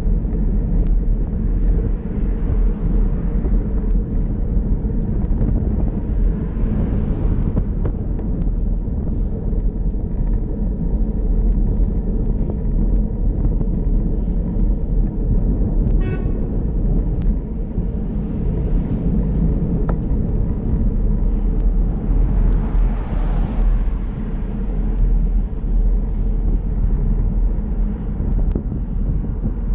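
Steady low rumble of wind buffeting the microphone and road noise from a slow ride along a street, with traffic swelling and fading past a few times.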